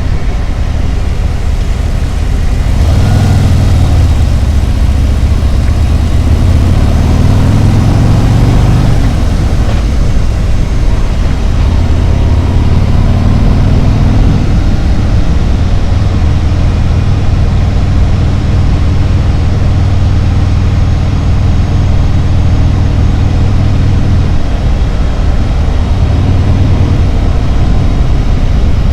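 Harley-Davidson Road Glide's V-twin engine running under way, its pitch rising and falling a few times in the first half and then holding steady, over a constant rush of wind and road noise.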